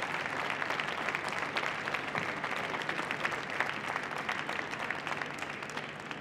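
Large audience applauding: dense, steady clapping that begins to fade near the end.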